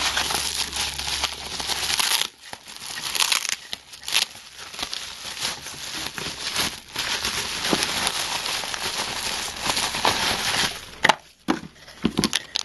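Pink anti-static bubble wrap crinkling and crackling as it is handled and pulled open. Near the end come a few sharp knocks.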